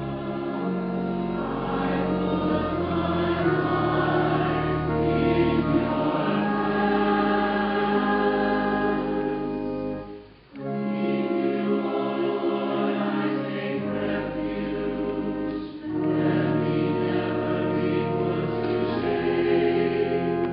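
A choir singing a slow sacred piece in long held notes. The sound drops out briefly near the middle and dips again a few seconds later.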